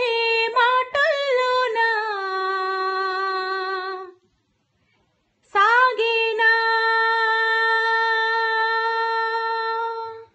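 A female voice singing a Telugu song unaccompanied. A sung phrase ends in a long held note about four seconds in; after about a second's pause, a second phrase settles into another long, steady held note.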